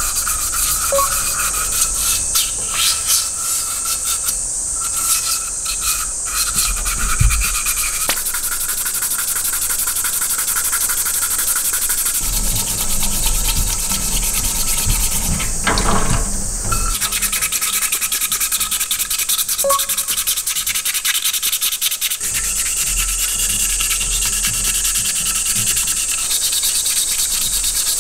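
600-grit waterproof sandpaper rubbed rapidly back and forth over a stainless steel mini sierra cup, wet-sanding it: a continuous fast scratching of abrasive paper on metal.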